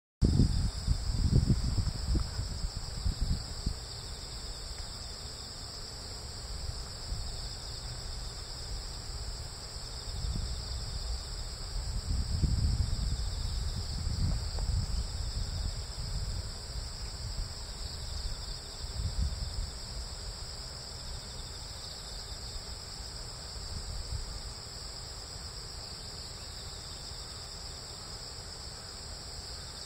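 A steady, high-pitched chorus of insects chirring without a break. Irregular low rumbles of wind buffeting the microphone come and go, loudest in the first few seconds and again in the middle.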